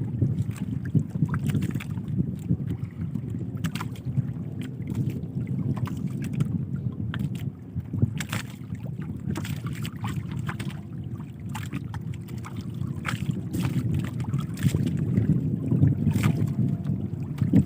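Steady low rumble of wind on the microphone and water moving around a small boat, with scattered sharp clicks and light knocks throughout.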